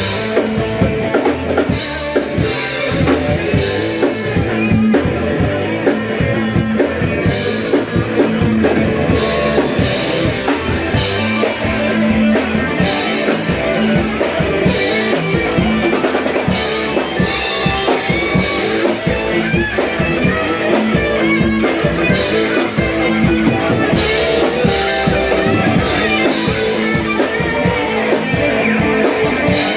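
Live rock band playing a steady song on drum kit and guitar, with bass drum hits running through.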